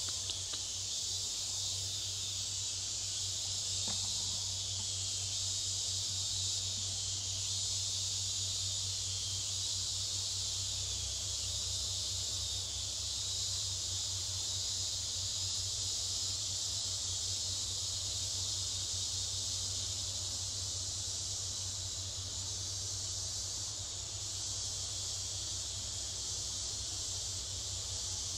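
Steady, high-pitched insect chorus, an unbroken drone, with a low steady hum beneath it.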